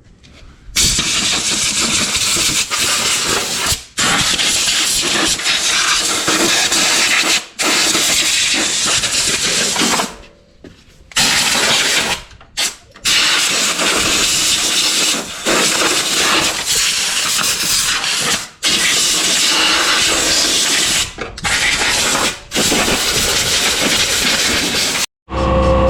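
A high-pressure cleaning jet hissing steadily as dirt and mold are blasted off an old riding mower. It runs in long bursts that stop abruptly several times.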